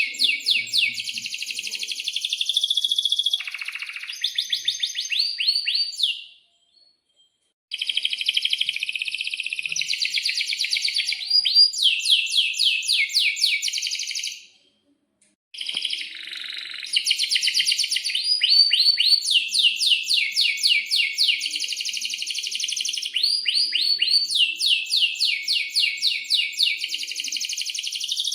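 Domestic canary singing a long song of fast, high-pitched trills and rolls, each run made of rapidly repeated notes. It breaks off twice for about a second, around six and fifteen seconds in.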